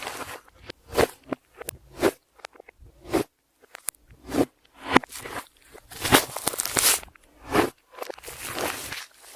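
Clear slime being kneaded and squished by hand, giving irregular bursts of sticky squelches, pops and crackles.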